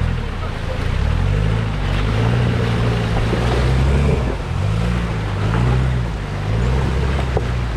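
Land Rover Defender 90's engine revving up and down in repeated surges under load as it crawls over rocks through a stream, with rushing water throughout.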